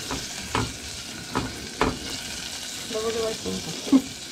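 Chopped garlic and dill sizzling in vegetable oil in a stainless steel pan, stirred with a silicone spatula that knocks and scrapes against the pan four or five times, the loudest knock near the end.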